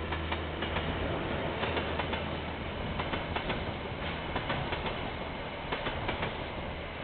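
KiwiRail train passing on the line, its wheels clicking irregularly over the rail joints above a steady low rumble that is strongest in the first few seconds. Heard through a security camera's microphone, so it sounds thin at the top.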